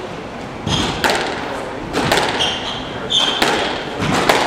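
Squash rally: the ball is struck by rackets and smacks off the walls, about five sharp hits, mixed with short high squeaks of court shoes on the hardwood floor.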